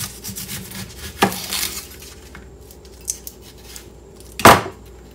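A chef's knife cutting an onion on a plastic cutting board, with the onion's papery skin rustling as it is pulled off. The knife knocks sharply against the board about a second in, and much louder near the end.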